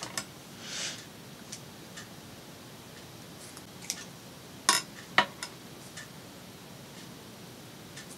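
Scissors snipping through washi tape, then scattered light clicks and taps of scissors and craft tools set down on a cutting mat. The two sharpest clacks come about five seconds in.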